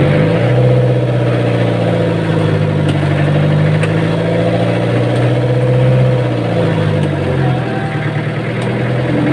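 Fishing boat's engine running: it picks up speed just after the start, holds a steady drone, and eases back down about seven seconds in.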